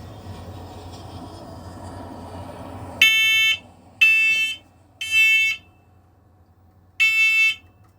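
First Alert talking 10-year smoke alarm sounding its test alarm, starting about three seconds in: three loud half-second beeps a second apart, a pause, then the first beep of the next group. This is the three-beep temporal evacuation pattern of a smoke alarm.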